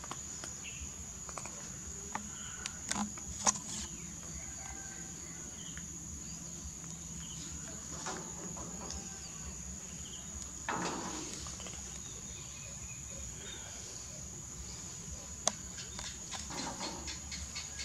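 Insects chirring steadily at a high pitch, with scattered sharp clicks and a brief rustle about eleven seconds in.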